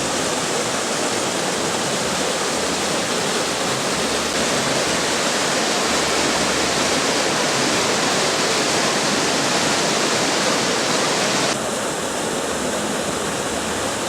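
Waterfall cascading over rocks, a steady rushing of water. About three-quarters of the way through, the sound shifts abruptly and becomes slightly quieter.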